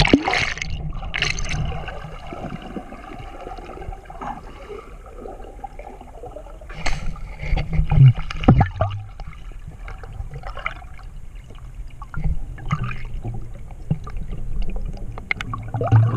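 Camera going under the water with a splash, then the muffled sound of water and bubbles heard through a camera held underwater as a free diver swims down, with louder surges of rushing and bubbling water several times.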